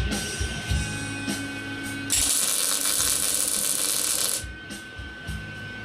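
MIG welder tack-welding thin-wall mild steel tube: the arc gives a steady crackling hiss that starts sharply about two seconds in and cuts off a little over two seconds later.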